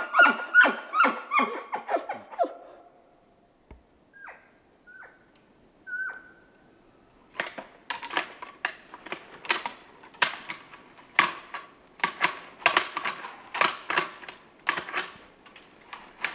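Bull elk calling: a rapid run of grunting chuckles that fades out in the first couple of seconds, then three short high notes, then a long series of sharp, rasping pulses about two a second.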